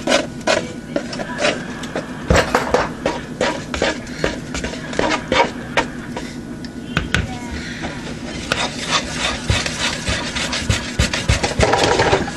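Pancake batter being stirred by hand in a mixing bowl: a utensil scraping around the bowl with many quick, irregular clicks against its sides.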